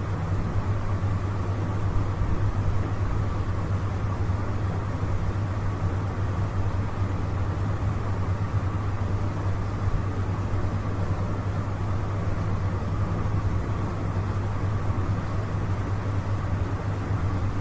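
Steady low hum with hiss underneath, unchanging throughout.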